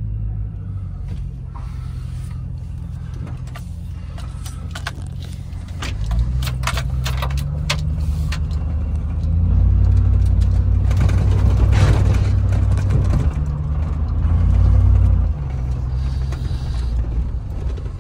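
A used Chevrolet 5.3L V8 in a 2006 Silverado pulling away on a test drive: the engine note rises about six seconds in, gets louder under throttle from about ten seconds in, then drops back as it eases off near the end. It runs with no knocking heard, a good sign for the freshly installed engine. A few light clicks come in the middle.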